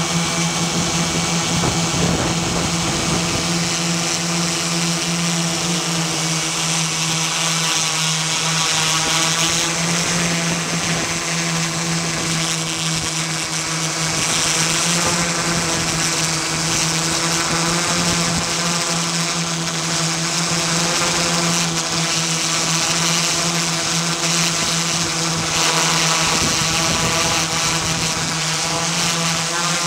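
Multirotor drone's electric motors and propellers buzzing steadily in flight: one unchanging pitch with many overtones above a hiss.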